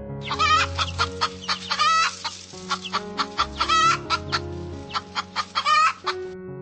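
Chickens clucking and cackling in a rapid series of short, sharp calls that stop near the end, over soft piano music.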